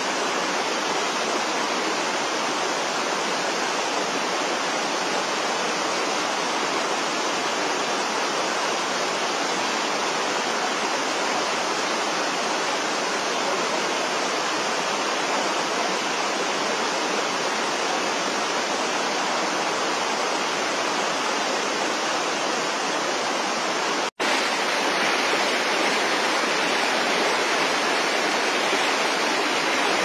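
Mountain creek rushing steadily over rocks and small cascades. About 24 seconds in the sound drops out for an instant at a cut, then a wider river's white-water rapids come in, a little louder and brighter.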